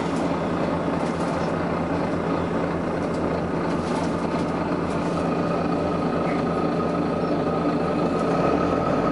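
Volvo B9TL double-decker bus's diesel engine running steadily, with a faint whine coming in near the end.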